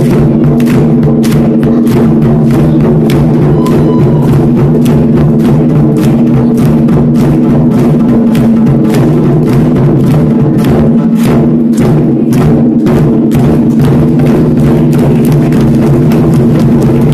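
Japanese taiko drums beaten with wooden bachi sticks by several players at once: a loud, continuous stream of rapid strikes, with the deep ring of the big barrel drums sustaining underneath.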